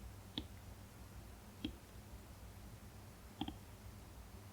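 Apple Pencil tip tapping on an iPad screen while drawing: a few light, sharp clicks, the last a quick double, over a faint steady low hum.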